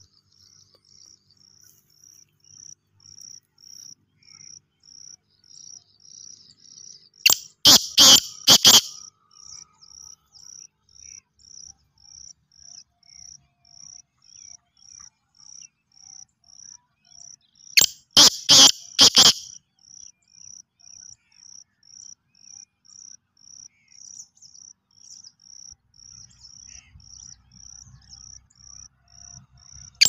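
Male black francolin calling twice, about ten seconds apart; each call is a loud run of four or five quick notes lasting under two seconds. Between the calls a cricket chirps steadily, about two or three high chirps a second.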